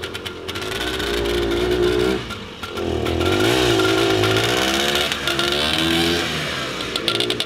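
1973 Sno-Tric SC 20-2 snowmobile engine running under way, its pitch rising and falling as it is revved up and down. There are rapid crackling pops near the start and again near the end. The owner says the engine still does not run clean after a carburettor adjustment and a new spark plug.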